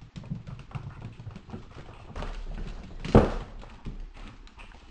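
A cat's and a Chihuahua's paws and claws tapping and scrabbling on a hardwood floor in quick, irregular clicks as they play. There is one loud thump a little over three seconds in.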